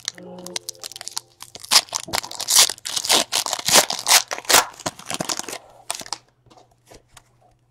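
Foil trading-card pack wrapper being torn open and crinkled by hand, a dense run of crackling and tearing that stops about six seconds in, followed by a few soft ticks of cards being handled. A brief tone sounds right at the start.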